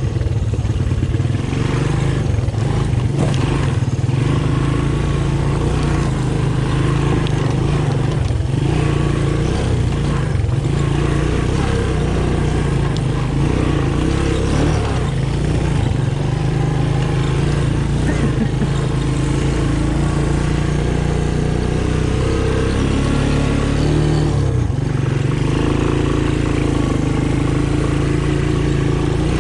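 Honda ATC 200M three-wheeler's single-cylinder four-stroke engine running under way along a rough trail, its pitch rising and falling with the throttle.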